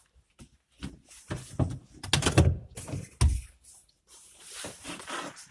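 Spare tire, jack and tool kit being lifted out of a car trunk: a run of heavy thumps and knocks, loudest in the middle, then a rustling scrape near the end.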